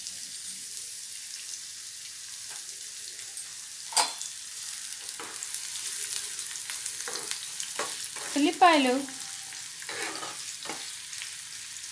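Chopped onions sizzling in hot oil in a non-stick pan, a steady high hiss, while a spatula stirs them with a few knocks against the pan, one sharp one about four seconds in. A short falling pitched sound cuts in about eight and a half seconds in.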